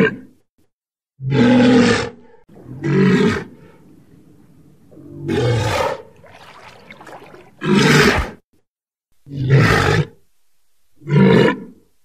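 Walrus calling over and over: six short grunting roars, about one every second and a half.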